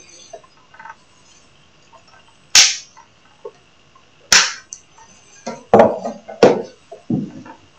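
A series of about five sharp bangs, irregularly spaced, each with a short ringing tail; the loudest come about two and a half and four seconds in, and the rest follow close together near the end.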